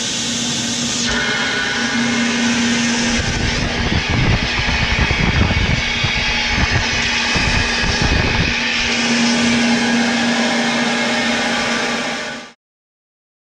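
CompAir Hydrovane 715C rotary vane air compressor running with its outlet open to the air and no tank fitted, so it builds no pressure: a steady hum under a strong rush of air from the open pipe. The air noise buffets rougher for several seconds in the middle, and the sound cuts off suddenly near the end.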